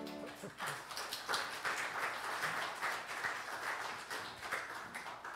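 A sustained piano chord dies away in the first half second, then the congregation applauds with many hands clapping until the end.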